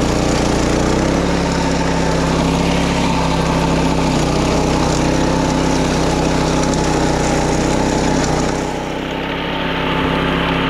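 Small engine of a wing mower (a walk-behind mower for paddy levees) running steadily while it cuts grass. Its tone shifts about a second in, and about nine seconds in the loudness dips briefly and the high hiss falls away.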